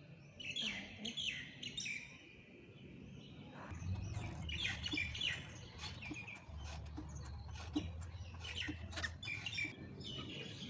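Small birds chirping in many short calls, with a faint low rumble underneath from about four seconds in.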